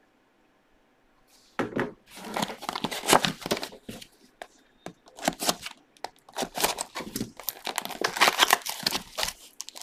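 Trading-card packaging being torn open: wrappers crinkling and tearing in quick, irregular bursts, starting about a second and a half in.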